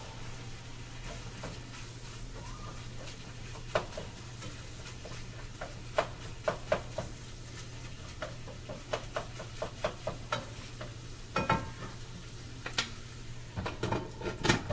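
Meat sizzling in a frying pan on the stove while a nylon spatula stirs it, with irregular clacks and scrapes of the spatula against the pan. A steady low hum runs underneath.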